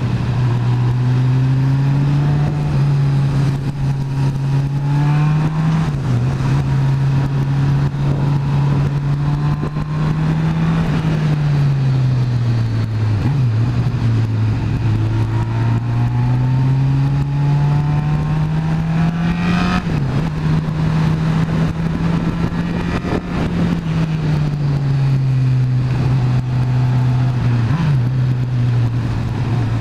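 Motorcycle engine running under way, its pitch rising and falling over several seconds at a time as the bike speeds up and slows, with about four brief breaks in the note, over steady wind and road noise.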